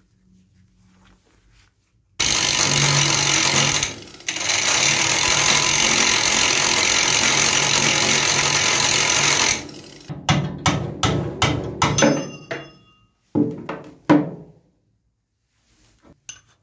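Handheld angle grinder with an abrasive disc grinding the steel jaws of a rusty pincer held in a vise. The grinding is steady for about seven seconds with a brief break, then comes in several short bursts.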